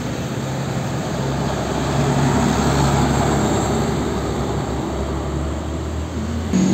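Old Mercedes-Benz cargo truck's diesel engine running as the truck drives past close by, with tyre noise on the road; it is loudest about halfway through, then eases as the truck pulls away.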